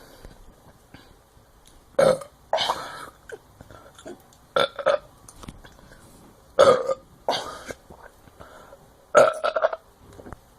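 A person burping over and over: a loud burp about every two to two and a half seconds, each followed by a shorter, weaker one.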